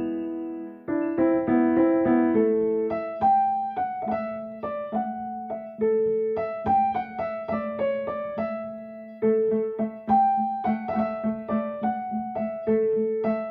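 Background piano music: a melody of single struck notes over a steadily repeated low note.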